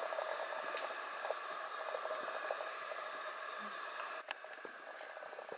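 Night-time Amazon rainforest insect chorus: several steady high-pitched buzzing tones layered over a continuous hiss, with faint scattered ticks. About four seconds in there is a sharp click, after which the chorus is quieter and the highest tone is gone.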